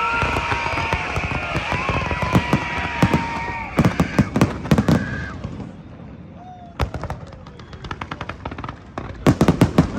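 Fireworks exploding: a dense run of crackling bangs with gliding whistles for about five seconds, then a brief lull, then quick volleys of sharp cracks near the end.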